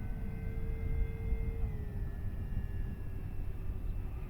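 Electric motor and propeller of an FMS Cessna 182 1.5 m RC model plane whining steadily in flight, the pitch dropping slightly about two seconds in, with wind rumbling on the microphone.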